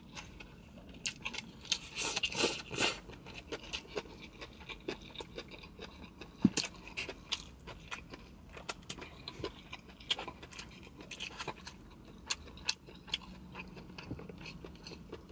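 Close-up chewing of stir-fried rice noodles: a run of small mouth clicks and smacks, densest about two to three seconds in, then scattered through the rest.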